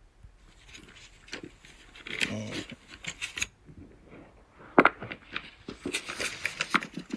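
Small objects being handled: scattered clicks, taps and rustles, with one sharp snap about five seconds in and a quick flurry of clicks near the end.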